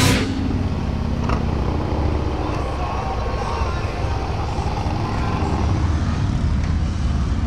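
Motor vehicle engine running steadily, a low hum over outdoor background noise.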